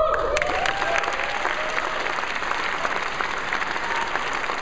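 Audience applause breaking out, with a few cheering whoops in the first second, then steady clapping from a large crowd.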